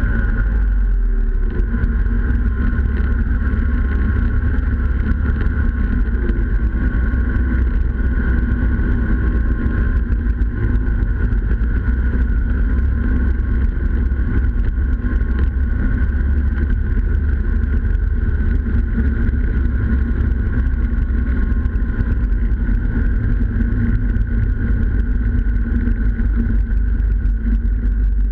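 Snowmobile engine running steadily while the sled travels along a snow trail, heard close up from the machine itself with a deep, steady rumble and a constant whine.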